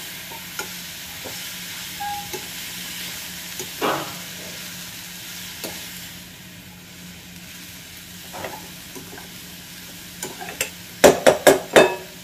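Steel spoon stirring and scraping drumstick-flower bhaji in a metal pan over a gas flame, over a faint steady sizzle. Near the end the spoon clinks sharply against the pan five or six times in quick succession.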